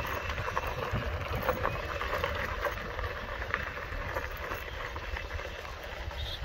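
Tyres rolling over a gravel road: a steady rough rolling noise peppered with small clicks from the stones, with a low wind rumble on the microphone.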